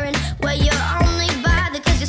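Upbeat dance-pop music with a steady kick-drum beat, about two beats a second, over a bass line and a melody.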